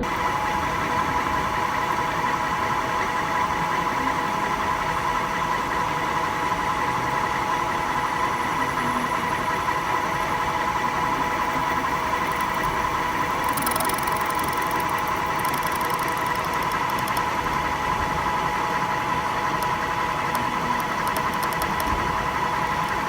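Manual metal lathe running steadily with a constant whine while boring an eccentric hole in a metal tool. A higher, scratchy cutting noise joins in for a few seconds about halfway through and again near the end.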